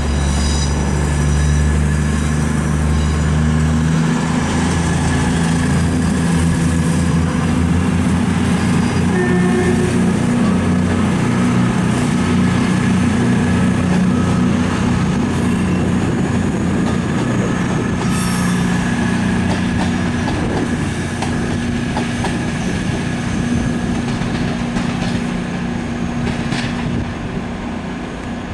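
Diesel train at the platform with its engines running and a steady low note that shifts about four seconds in, easing off near the end. A high wheel or brake squeal fades out in the first second.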